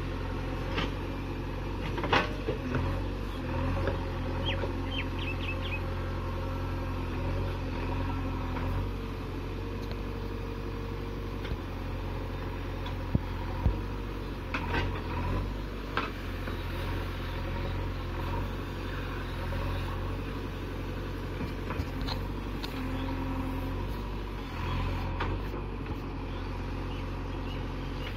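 JCB 3DX backhoe loader's diesel engine running steadily under load as the machine climbs a steep earth bank. A few sharp knocks are heard, the loudest about 13 to 16 seconds in.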